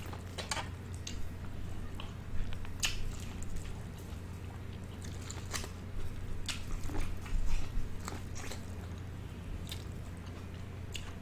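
Close-miked biting and chewing of corn on the cob: irregular wet crunches and clicks, over a steady low hum.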